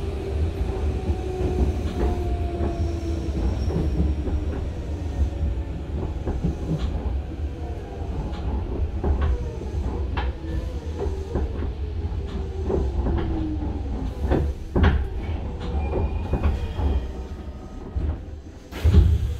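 Hanshin 5001-series resistance-control commuter train heard from inside the car as it slows into a station. Under a steady low rumble, its running whine slides gradually down in pitch, and the wheels click over rail joints. A sudden loud noise comes near the end, as it comes to a stop.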